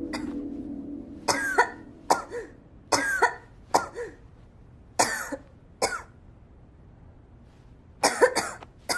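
A person coughing: a string of short, sharp coughs, some paired, with a tighter burst of three near the end.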